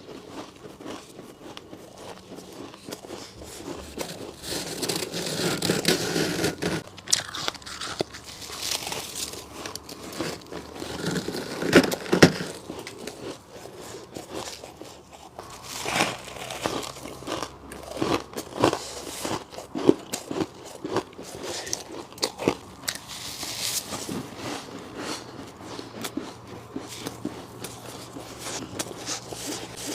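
Close-miked biting and crunching of freezer frost ice chunks, many irregular cracking bites in a row, the loudest about twelve seconds in.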